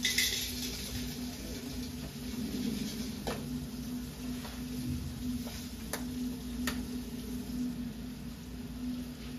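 Food sizzling on a hot cooking surface, over a steady low hum, with a few sharp utensil clicks in the middle.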